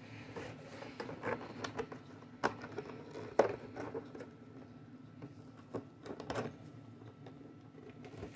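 A cardboard box handled and its plastic tab clip worked open: scattered clicks, taps and short scraping rustles, the sharpest click about three and a half seconds in.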